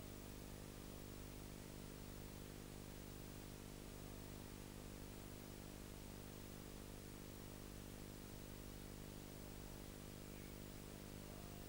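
Faint, steady electrical hum with an even hiss over it, and nothing else.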